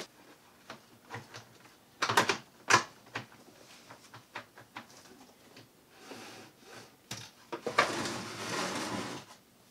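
Hard plastic clicking and knocking as a Muddy Magna Lift rope spool is handled against a plastic milk crate, the loudest knocks about two to three seconds in. Near the end comes about a second and a half of scraping as its back clip is slid onto the side of the crate.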